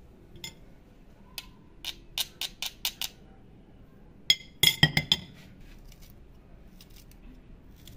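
A run of light clicks and taps from a metal garlic press knocked against the clay tajine, then a louder cluster of ringing glassy clinks about halfway through as a glass oil cruet is handled.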